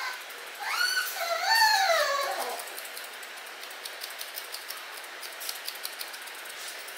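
Poodle whining in two rising-and-falling cries about a second in, then a run of faint snips from grooming scissors trimming the fur around its face.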